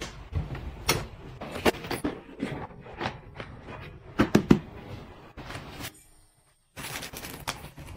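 Close-up handling of a padded toiletry bag and its contents: a string of light knocks, taps and fabric rustles, broken by a brief silence about six seconds in.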